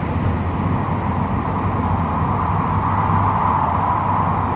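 Steady rumble and rush of an N700 series Shinkansen running at speed, heard from inside the passenger car.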